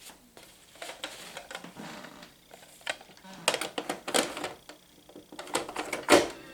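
A run of irregular mechanical clicks and clunks from handling the vintage stereo unit, the loudest knock near the end.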